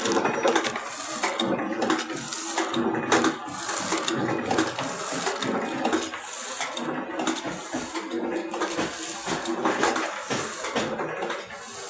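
Snack packing machine running: a steady hum under a continuous clatter of small clicks, with a high hiss that briefly cuts out every so often.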